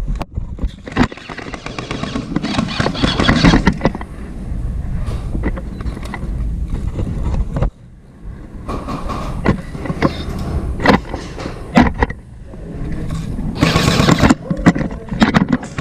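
Rustling, scuffing movement noise with a low rumble, broken by scattered sharp clicks and knocks. It drops away briefly about halfway through and comes back loud near the end.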